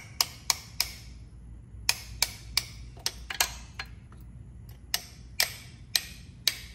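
Sharp metallic clicks from hand tools working on a tractor's hydraulic lift cover. They come in short runs of about three or four a second, with pauses between.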